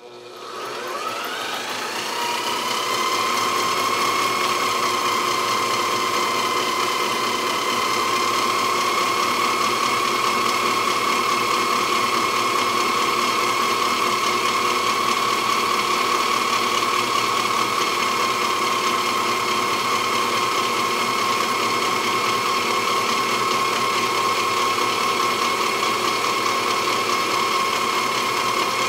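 Industrial sewing machine stitching foam-backed upholstery panels: the motor winds up over the first couple of seconds, its pitch rising, then runs at a steady high speed with a continuous whine.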